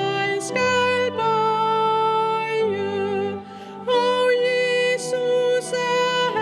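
A female church singer sings a hymn melody in sustained notes over held pipe-organ chords.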